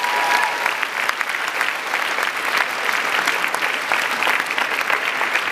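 Audience applauding steadily, a dense wash of many hands clapping at once.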